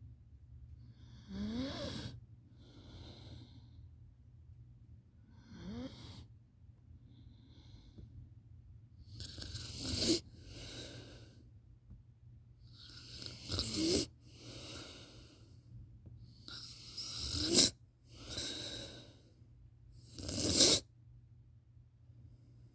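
A sleeping person snoring: about six snores at roughly three- to four-second intervals, the later ones much louder and each cutting off sharply, with quieter breaths between them.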